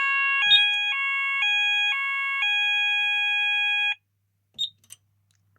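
Apollo XP95 addressable sounder beacon base sounding its evacuate tone, two pitches alternating about twice a second, then one pitch held for about a second and a half before it cuts off suddenly. Two short clicks follow near the end.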